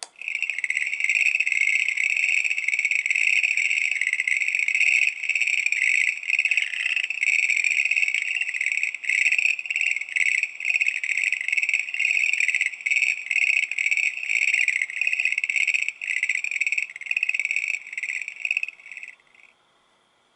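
Frog-call keychain toy's sound chip playing a recorded Schlegel's green tree frog call: a rapid pulsing chorus that runs on for about nineteen seconds, then cuts off suddenly.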